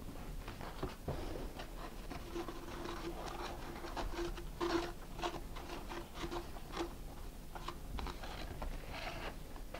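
Tape being peeled off a cardboard rocket body tube: a run of small crackles and rips, with a faint stuttering hum through the middle as the tape comes away.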